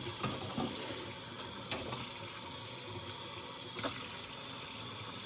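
Kitchen faucet running steadily into the sink during hand dishwashing, with a couple of faint clicks.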